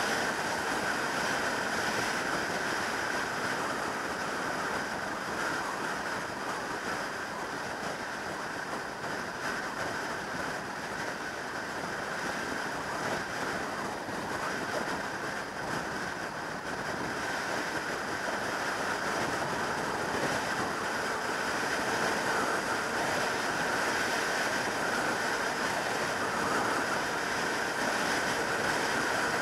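Steady rush of wind over the microphone of a 2003 Yamaha YZF600R Thundercat sportbike riding at motorway speed, with its engine and tyre noise underneath. The rush eases a little in the middle and grows again toward the end.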